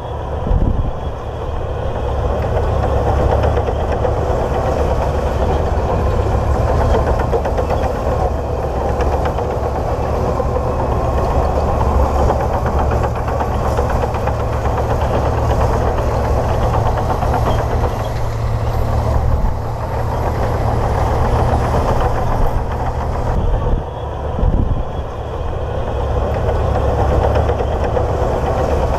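Komatsu D58P bulldozer's diesel engine running steadily with a deep, continuous hum, dipping briefly about three quarters of the way through.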